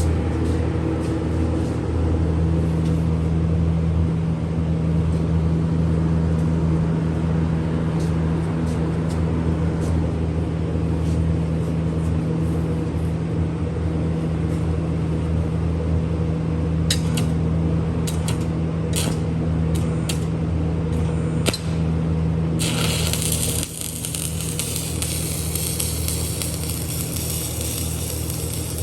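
Miller Syncrowave 350 transformer welding power source humming steadily under load while stick welding on DC at about 50 amps, with the arc's constant crackle and sizzle. There is a run of sharp pops and clicks about two-thirds of the way in, then a brighter, hissier sizzle near the end.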